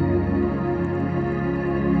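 Background music: slow ambient, new-age style music with sustained, layered low tones.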